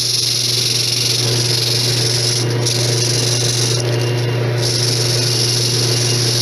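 Lathe running with a steady motor hum while a wad of wet aluminum foil is pressed against the spinning, pitted nickel-plated rim of an antique sewing-machine handwheel, giving a loud hissing scrub. The scrubbing lifts off briefly twice, once about two and a half seconds in and again around four seconds in.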